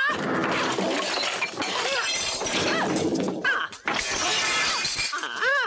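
Sound effects of a magical fight: a dense, continuous clatter of crashing, breaking noises and whooshes, with a few short shouts or cries, one near the end.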